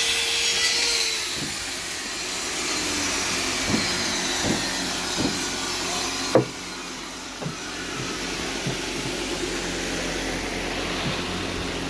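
Woodworking power saw running, with a high whine that slowly falls in pitch, and scattered knocks with one sharp click about six seconds in.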